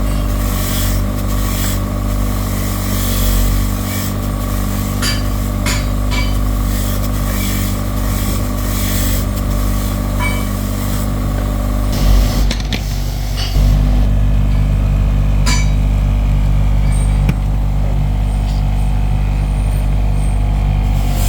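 Workshop machinery running with a steady hum, with sharp metal clicks and knocks scattered over the first dozen seconds. A brief clatter comes about 12 seconds in, then the hum gets louder and deeper at about 13 seconds.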